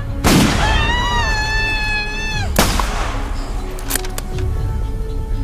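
Two scoped bolt-action sniper rifle shots with a trailing echo, about two seconds apart, with a long high-pitched cry between them. A few short clicks follow about four seconds in as a rifle bolt is worked, over background film music.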